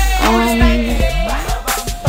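Hip hop song playing: a heavy bass beat under vocals.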